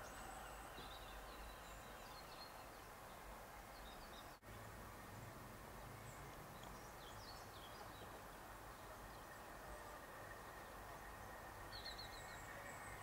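Faint, scattered bird calls, seagulls among them, over a quiet steady background.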